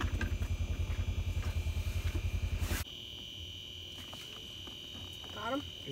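A vehicle engine running close by, a fast even low throb, which cuts off abruptly about halfway through. After that a steady high-pitched whine is left, with a few faint sounds.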